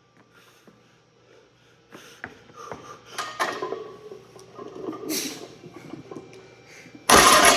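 A lifter's forceful breaths and strained exhales through a heavy barbell deadlift rep. Near the end comes a sudden, much louder burst as the plate-loaded barbell comes back down to the platform.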